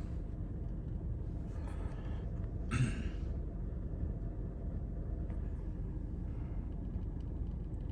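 Steady low rumble of a car running, heard inside its cabin, with two short rustling sounds about two and three seconds in.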